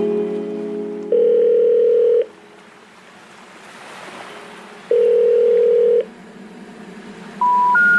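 A music track's last held note fades out. A telephone ringing tone then sounds twice, about a second each, with a soft hiss between. Near the end come three short rising beeps like a telephone network's intercept signal.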